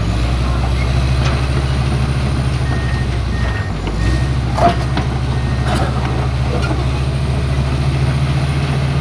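Excavator's diesel engine running steadily, its note shifting briefly about four seconds in, with a faint repeated beep in the middle and a couple of metallic knocks.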